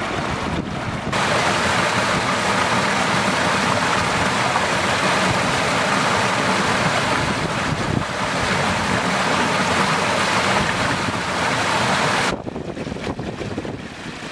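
Small mountain stream rushing and splashing over rocks and a little waterfall, a steady rush of water that grows louder about a second in and drops back near the end.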